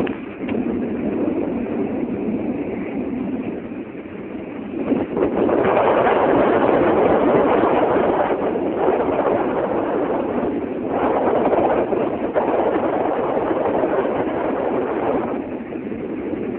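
Wind rushing over the camera's microphone during a parasail ride, a rough rumbling noise that swells and eases in gusts and grows louder about five seconds in.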